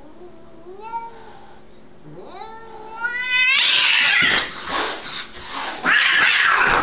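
House cats fighting: two rising, drawn-out yowls, the second climbing steeply, then a loud, harsh screech as they clash about three and a half seconds in, and another near the end.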